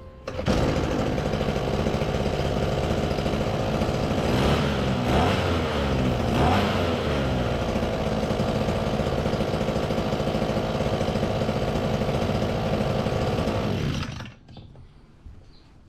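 A TBC 2501S brush cutter's small two-stroke engine runs steadily after being repaired for a no-start fault. Near the middle it is revved up and back down twice, and it cuts off near the end.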